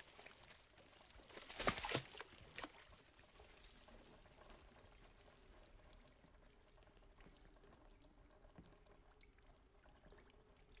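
Thick red slurry splashing onto a floor through a broken ceiling. There is a loud splash about two seconds in and a smaller one just after, then faint, scattered dripping and trickling from above.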